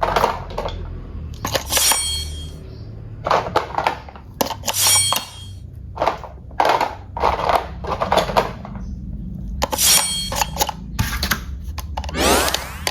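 Hard objects being handled: a string of separate clattering knocks and clinks, some ringing briefly, with a quick rising sweep near the end.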